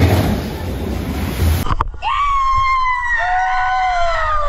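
A rushing noise, then, after a cut at about two seconds in, amusement-ride passengers screaming inside a dark enclosed tube: several voices in long, overlapping screams, each sliding down in pitch.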